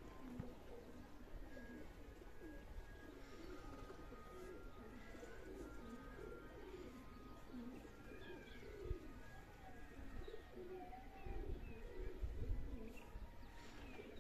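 Birds calling: a steady run of low, repeated calls, joined by a few short higher chirps in the second half. A low rumble comes in near the end.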